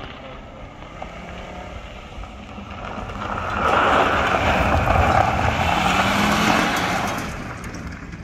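A car driving fast on a gravel road, engine revving and tyres crunching and spraying gravel as it slides through a turn. It grows louder as it approaches, is loudest for a few seconds from about four seconds in as it passes close, with the engine pitch climbing, then fades as it pulls away.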